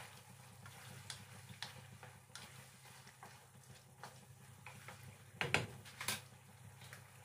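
Wooden spatula clicking and tapping against a nonstick wok while seafood in a thick sauce is stirred, with two louder knocks about five and a half and six seconds in, over a steady low hum.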